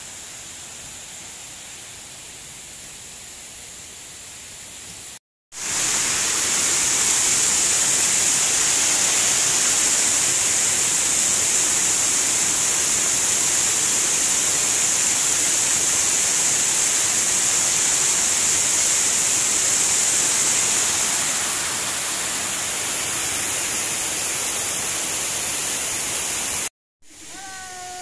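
Water pouring over a small stepped weir into a stone channel: a loud, steady rush that starts about five seconds in and cuts off about a second before the end. Before it there is a quieter steady outdoor hiss.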